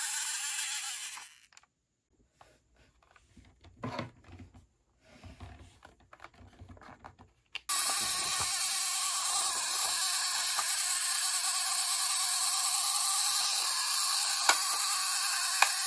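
Clockwork wind-up motor of a Tomy Pocket Arcade Space Dock game whirring steadily, then running down and stopping about a second and a half in. After a few seconds of faint handling knocks, the whirring starts again abruptly, with two sharp clicks near the end.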